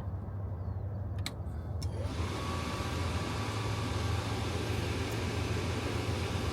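Two clicks, then the propane furnace's blower motor starts: a brief rising whine as it spins up, settling into a steady whir of rushing air. It signals the furnace coming back to life after its airflow parts were blown clean.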